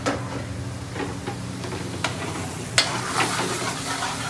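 Metal spoon clinking and scraping on a plate and in a frying pan, a few sharp clinks with the loudest near three seconds in, then curry sizzling and being stirred in the pan, over a steady low hum.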